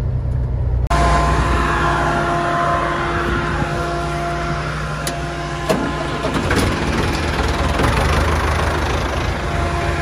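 Diesel engines running. First the low rumble of the Kenworth T800 semi truck heard from inside the cab; then, after a cut about a second in, a louder tractor engine running steadily with a steady whine over it.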